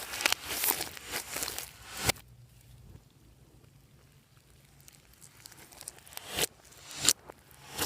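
Glossy slime being worked and mixed by hand, making sticky crackles and small pops. It goes quiet for a few seconds in the middle, then the crackling builds again to two sharp pops near the end.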